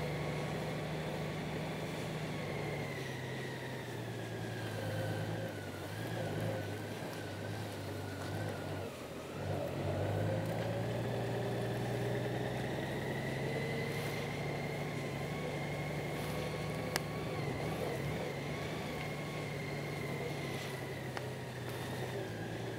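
Honda Gold Wing's flat-six engine running at low revs as the motorcycle rolls slowly, a steady low hum with a thin higher whine that sinks and rises in pitch. The sound dips briefly about nine seconds in, then picks up again.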